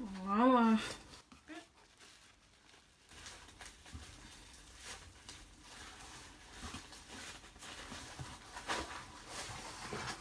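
A short wavering hummed voice sound about a second long, then faint rustling and light clicks as jars and packaging are handled.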